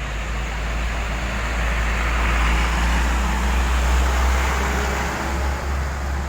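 A heavy truck passing close by. A deep engine rumble and road noise swell to a peak about four seconds in, then ease off as it goes past.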